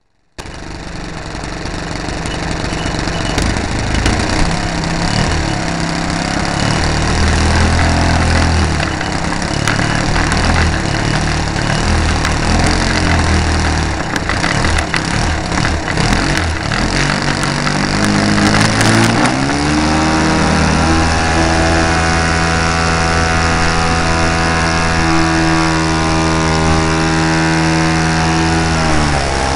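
RC model airplane's motor running, heard up close from a camera mounted on the shaking airframe with wind noise. It runs rough and noisy at first. About two-thirds of the way in the pitch rises as the throttle opens, then holds steady, dropping slightly near the end.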